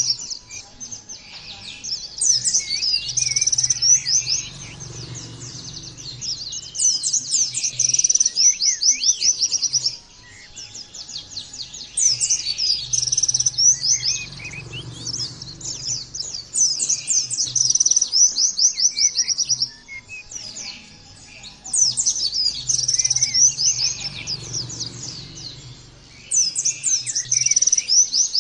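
White-eye (pleci) singing: fast, high twittering song phrases of a few seconds each, repeated over and over with short pauses between them.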